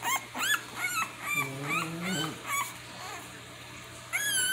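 Two-week-old American Bully puppy crying in short, high-pitched squeals, a few a second at first, then a pause and one longer cry near the end.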